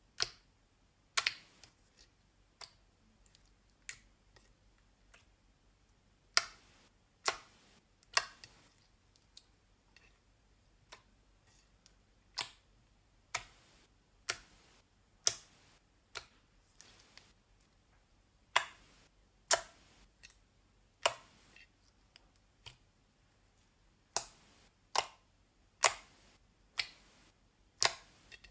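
Glossy slime poked and pressed with fingertips, giving sharp wet pops and clicks as air pockets burst, irregularly spaced at about one a second.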